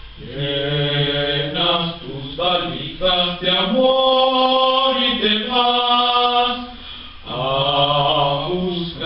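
Mixed choir of teenage voices singing unaccompanied, low male voices under higher ones. Phrases rise into long held chords, with a brief breath pause about seven seconds in.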